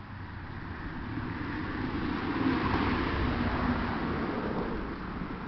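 A vehicle passing by, growing louder to a peak about three seconds in and then fading away.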